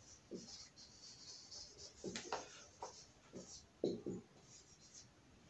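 Marker pen squeaking and scratching on a whiteboard as a word is written and underlined: a series of short, faint strokes.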